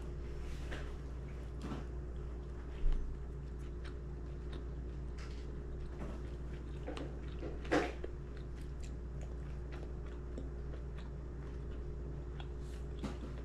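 Steady low hum with scattered small clicks, a short low thump about three seconds in and a sharper knock or clink near eight seconds.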